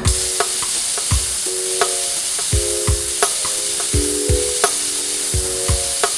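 Gravity-feed compressed-air spray gun hissing steadily as it is triggered for a quick spray-through to clean out the contact adhesive. Background music with chords and a regular beat plays underneath.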